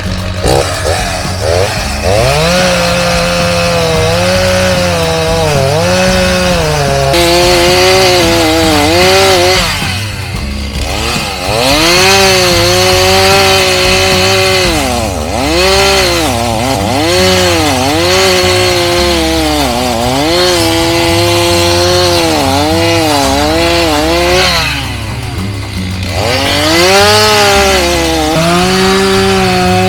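Chainsaw running at high revs while cutting wood, its pitch repeatedly sagging as the chain loads up in the cut and climbing back as it frees. The engine eases off briefly twice, about ten seconds in and again near the end.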